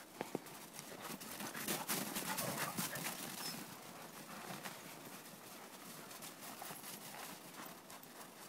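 Footsteps crunching through snow, a quick uneven run of crunches that is busiest in the first half and lighter later.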